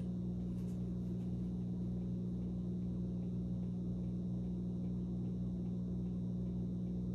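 Steady electrical mains hum from the Symphonic portable turntable's amplifier coming through its speakers, with the set switched on and nothing playing yet.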